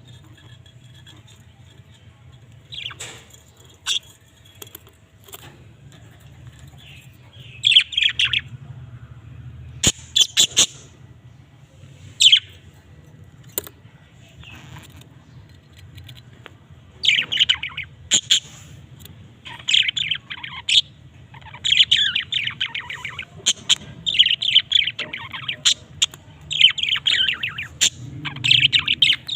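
Budgerigars chirping and chattering in short bursts that come more often in the second half, over a faint steady low hum.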